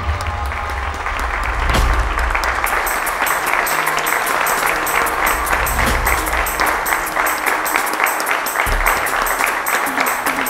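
Theatre audience applauding: many hands clapping together in a dense, continuous patter.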